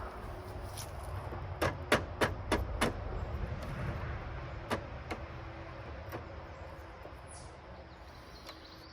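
A run of sharp clicks and knocks, five in quick succession about two seconds in, then a few single ones further apart, over a steady low rumble.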